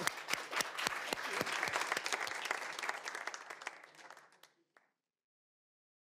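Audience applauding, many hands clapping at once, fading away over about four seconds until the sound cuts off.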